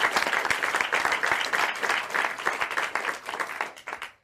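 A crowd applauding, many hands clapping in a dense, even clatter that dies away near the end.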